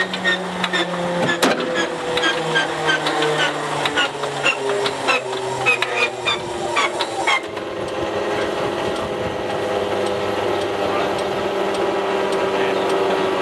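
Stinson L-1's Lycoming R-680 nine-cylinder radial engine being turned over by its starter, with the propeller turning slowly. Evenly spaced clicks, about two or three a second, sound over a whine that steps down in pitch. About seven seconds in the clicking gives way to a steady hum, with no sign of the engine firing.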